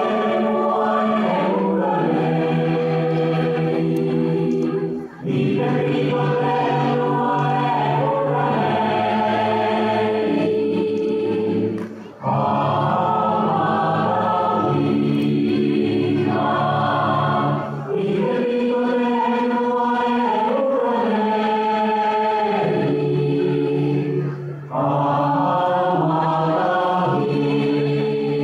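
Music of a choir singing held chords in long phrases, with short breaks about every six seconds.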